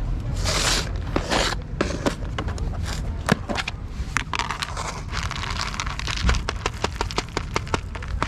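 Crinkling and rustling with scrapes, then a quick run of sharp clicks, over a low background rumble.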